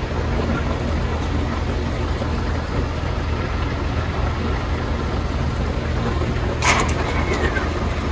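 Water running steadily from a pump-style dispensing nozzle into a plastic water can, over a low steady hum. A short clatter about two-thirds of the way through.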